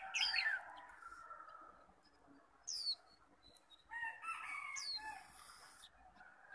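Roosters crowing in the background, twice: near the start and again about four seconds in. Short, high, falling chirps from caged white-eyes come in between and over them.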